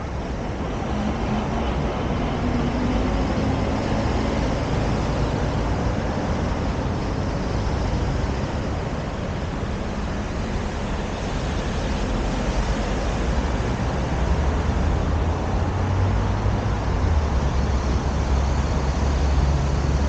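Road traffic on a wide city street, a steady wash of passing cars and buses, with a deeper rumble building in the last few seconds.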